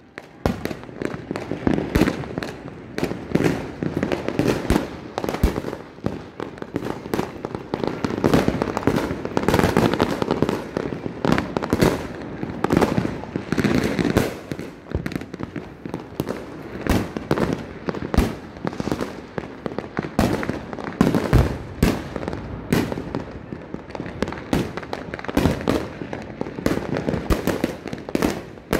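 Fireworks going off in quick, irregular succession: aerial shells bursting with bangs and crackling, many reports overlapping with no pause.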